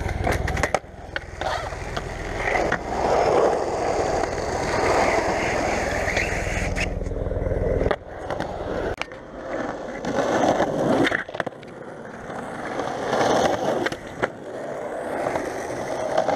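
Skateboard wheels rolling over concrete, swelling and fading as the rider carves, with sharp clacks from the board several times.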